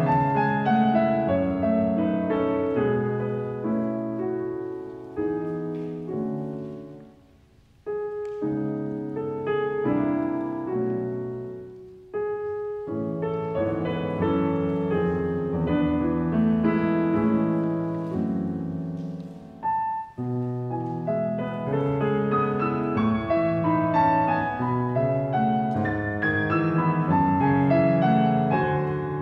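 Grand piano played solo: a flowing passage of chords and melody that dies away about seven seconds in, then starts a new phrase, with brief breaks near twelve and twenty seconds.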